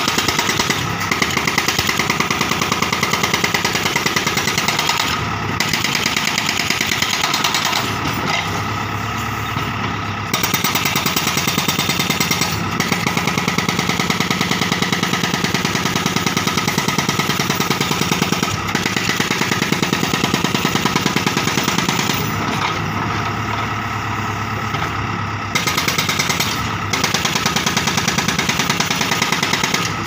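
Hydraulic rock breaker on a Bull HD76 backhoe loader hammering concrete in fast, even blows. It pauses briefly a few times, most noticeably for about three seconds near the end, while the loader's Kirloskar 4760 cc diesel engine keeps running underneath.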